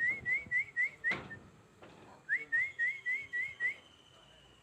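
Two quick runs of about six short, rising whistled notes each, high-pitched and evenly repeated, with a sharp click about a second in.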